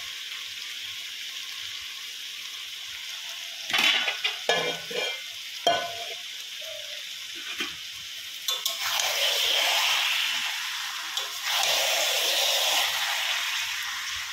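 Mutton sizzling as it fries in a pan for kosha, with a few sharp scrapes and knocks of the stirring spoon against the pan about four to six seconds in. The sizzle swells louder in the second half.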